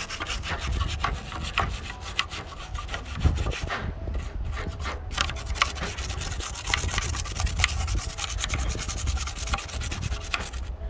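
Toothbrush bristles scrubbing a petrol-wet graphics card circuit board in rapid back-and-forth strokes, with a brief break about four seconds in.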